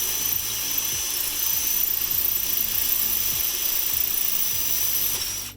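Power drill with a masonry bit boring into brick veneer: a steady, high grinding noise that starts abruptly and cuts off just before the end.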